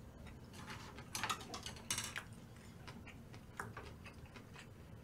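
Faint eating sounds: a scattered series of soft clicks and short crackly bursts of food being chewed and handled, with the loudest bursts about one and two seconds in.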